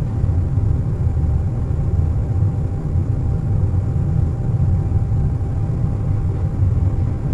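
Steady low drone of an airliner cabin at cruise, mostly deep rumble with a faint thin steady tone above it.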